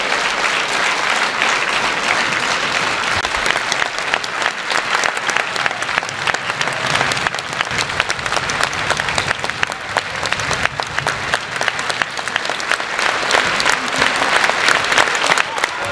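Sustained applause from a large theatre audience, joined by cast members clapping close by, many claps blending into a steady wash that swells a little near the end.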